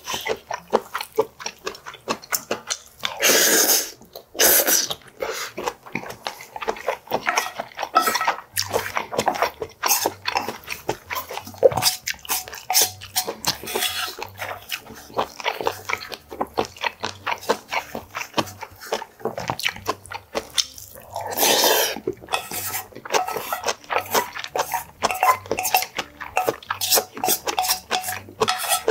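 Close-miked chewing and mouth sounds of someone eating a rice dish, with a wooden spoon scraping and tapping a brass bowl. Many short clicks throughout, with two longer noisy sweeps a few seconds in and about two-thirds of the way through.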